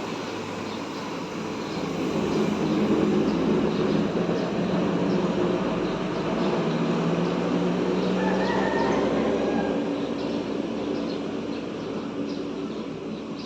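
Bus diesel engine running, its low hum swelling louder about two seconds in and easing off again toward the end.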